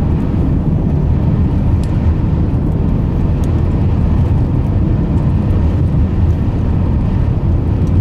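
Steady low rumble of a vehicle driving on a snow-covered highway: tyre and wind noise.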